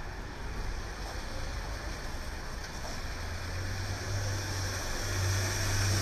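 Traffic on a rain-soaked city street: tyres hissing on wet pavement over a low engine rumble. The sound grows louder over the last couple of seconds as a vehicle passes close.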